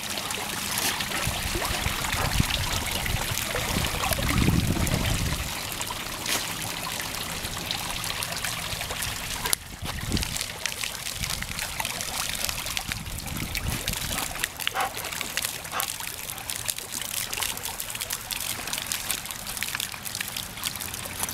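Water from a rock fountain trickling and splashing steadily into a stone pool.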